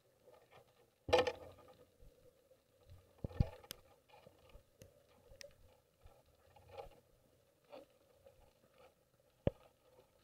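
Muffled underwater sound from a camera hanging in the sea on a fishing line: faint water noise and a low steady hum, with scattered knocks and clicks. The loudest is a thump about a second in, followed by sharp knocks around three and a half seconds and another near the end.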